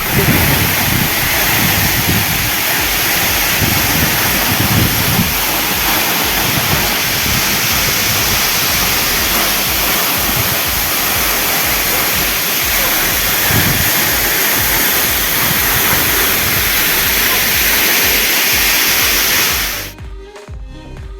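Waterfall heard up close: a loud, steady rushing of falling water that cuts off abruptly near the end.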